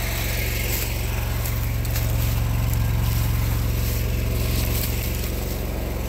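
Engine of a Vermeer SPX25 remote-controlled vibratory plow running steadily, a low even hum that swells slightly about two seconds in.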